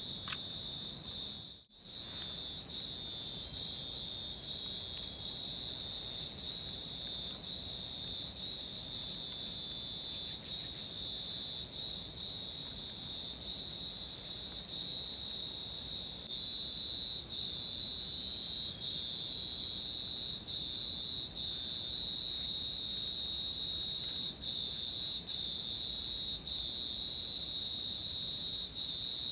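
Night-time forest insect chorus: a steady high trill with rapid ticking chirps above it. It drops out for a moment about two seconds in.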